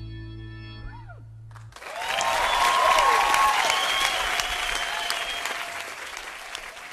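A live acoustic band's last chord rings out and fades, then about two seconds in a studio audience breaks into loud applause and cheering that slowly dies down.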